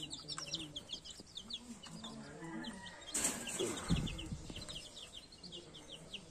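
Many young chicks peeping steadily in a brooder, with lower clucking calls underneath. About three seconds in comes a rustling clatter, and the loudest sound, a low thump, follows about a second later.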